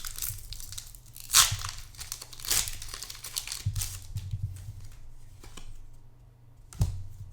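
Foil wrapper of a Pokémon trading card booster pack being torn open and crinkled, with the loudest rip about a second and a half in, another around two and a half seconds, and a short sharp snap near the end.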